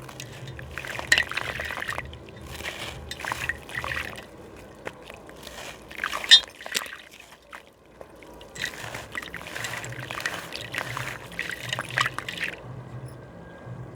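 Gritty slab crumbling and breaking apart in water, in irregular bursts of crackling and watery trickling and sloshing, with a sharp click about six seconds in.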